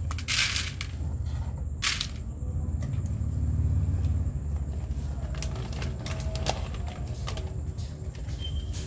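Dry cat kibble dropped and rattling onto a plastic plate in two short bursts, about a third of a second in and at about two seconds, over a low rumble. Later come scattered light clicks and crunches as cats eat the kibble.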